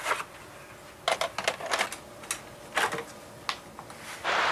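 Irregular sharp clicks and knocks of hands handling a delivered package and its contents, in short clusters with gaps between.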